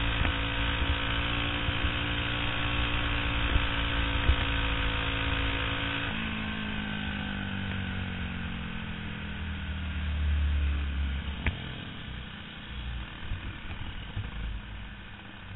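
Racing kart engine running at steady high revs. About six seconds in the throttle is lifted and the engine note falls steadily as the kart slows, sinking to a low, uneven idle-like run near the end.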